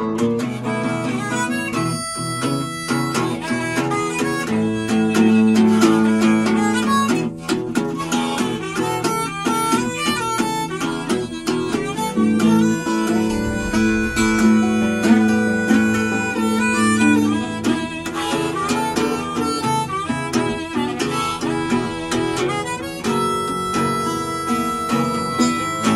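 Harmonica in a neck rack playing an instrumental break over acoustic guitar accompaniment, with long held notes over the plucked strings.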